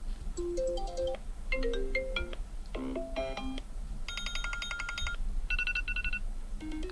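Apple iPhone 14 ringtones previewed one after another: about five different short electronic melodies of roughly a second each. About four seconds in comes a fast run of high repeated beeps, followed by a quick two-note pattern.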